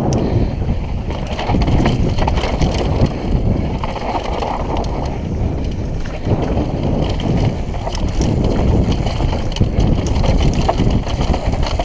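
Wind rushing over a helmet-mounted camera's microphone while a downhill mountain bike rolls fast over a dry dirt trail. Tyres crunch on loose dirt and small stones, and the bike gives many small rattles and knocks.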